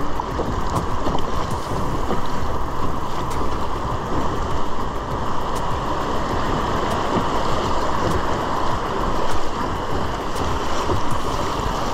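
River water rushing over shallow rapids around a kayak, a steady churning wash, with wind rumbling on the microphone.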